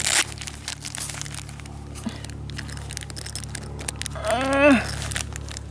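Rustling and small clicks of a nylon shoulder bag being handled as its strap buckle is worked one-handed. A short vocal sound comes about four seconds in.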